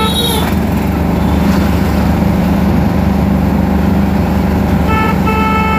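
Steady engine and road noise of a moving motor vehicle, with a vehicle horn sounding: one blast cuts off just after the start, and two more short honks come near the end.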